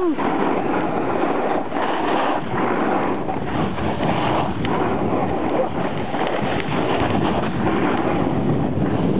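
Skis sliding and scraping over man-made snow on a downhill run, under a steady rush of wind on the microphone.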